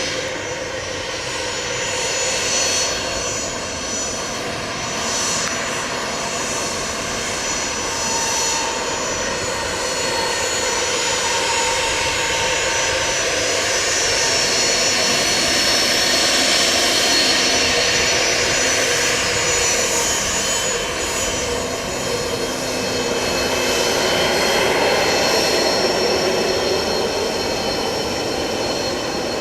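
Twin Pratt & Whitney Canada PW306C turbofans of a Cessna 680 Citation Sovereign business jet running, a steady high whine over a broad rush of jet noise that swells a little around the middle and again near the end.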